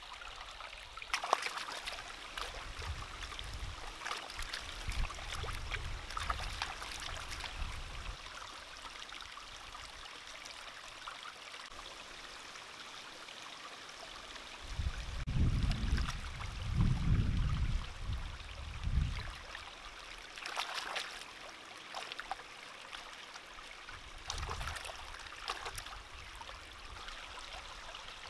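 Steady rush and trickle of a small stream, with scattered short crackles and a run of low bumps a little past the middle, the loudest moment, as vegetables are handled.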